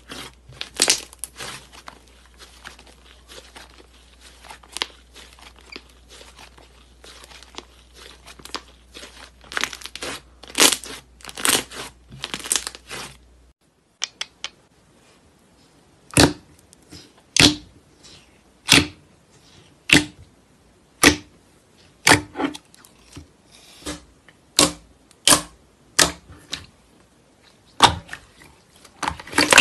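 Hands kneading and stretching slime, making sticky crackles and snaps. After a cut, a run of sharp pops comes about once every second as the slime is pressed and pulled.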